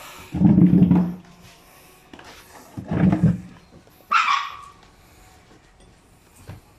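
A dog barking three times, the third bark higher-pitched than the first two.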